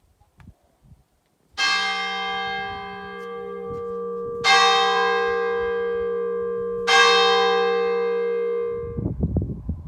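A bell struck three times, about two and a half seconds apart, each strike ringing on into the next until the sound cuts off abruptly near the end.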